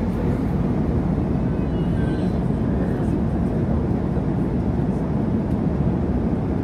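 Steady low-pitched cabin noise inside a passenger jet airliner, the even drone of the engines and air around the cabin.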